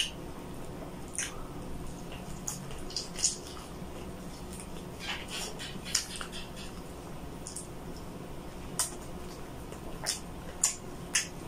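Close-miked eating sounds: about ten short wet smacks and sticky clicks of lips, mouth and fingers as oily braised pork adobo is picked up by hand, bitten and chewed.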